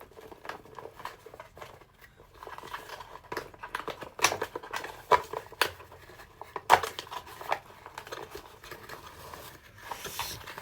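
Plastic toy packaging being handled while twist ties are untwisted: irregular clicks, taps and rustles, with a few sharper knocks about four, five and seven seconds in.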